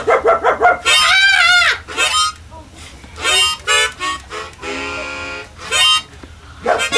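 Harmonica playing a tune in short phrases: quick notes, a long wavering note about a second in, then a held chord near the end.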